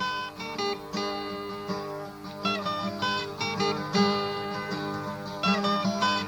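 Acoustic guitar music: fingerpicked notes ringing over one another.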